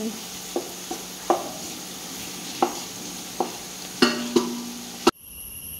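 Sliced onions sizzling as they fry in oil in a biryani pot, stirred with a wooden spatula that knocks against the pot about six times. The sizzle cuts off abruptly near the end.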